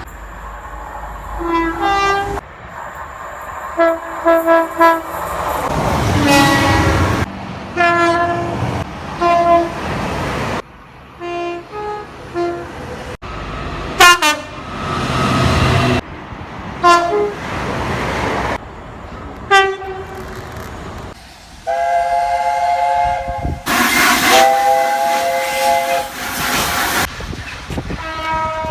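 A rapid series of train horns from different trains, cut one after another: many short two-tone blasts, one that falls in pitch about halfway through as the train passes, and a longer held chord near the end. Between the horns comes the loud rushing rumble of trains going by.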